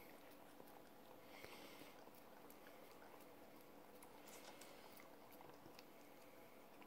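Very faint licking with small scattered clicks: a corgi lapping at food on a plate, barely above room tone.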